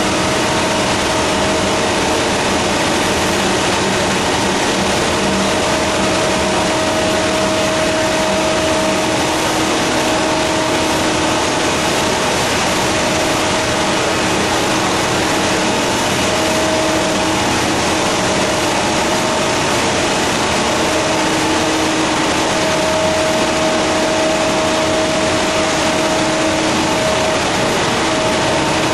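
Fourdrinier paper machine running: a steady, dense mechanical hum and rush of rolls and drives, with a whine that fades in and out.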